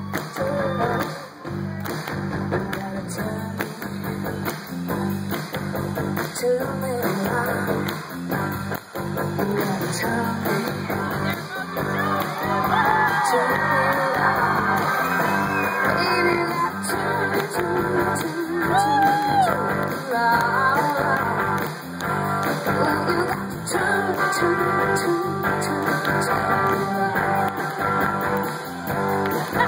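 Live rock band playing: electric guitars and drums with a woman singing lead. The band gets louder about twelve seconds in.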